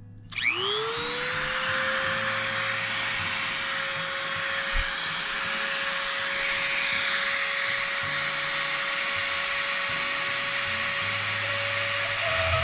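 Dremel rotary tool spinning up about half a second in, its whine rising and then holding steady, as its multi-bladed cutting tip works against a ceramic magnet.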